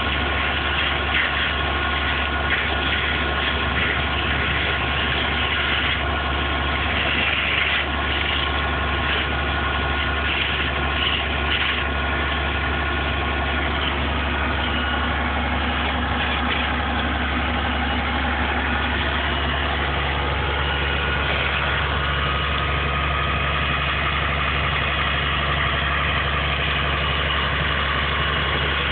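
A vehicle engine idling steadily: an even low drone that does not change.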